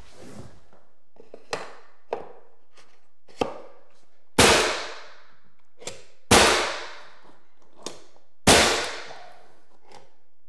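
Ridgid pneumatic finish nailer firing three times about two seconds apart, each shot a sharp crack with a short fading tail, as it drives nails into baseboard trim. Fainter knocks fall between the shots.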